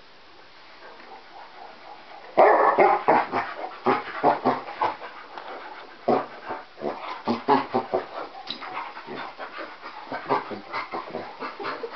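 Two dogs, a basset hound and a dark-coated puppy, play-fighting, with a quick, uneven run of barks and panting. The noise starts suddenly about two seconds in and is loudest at its start.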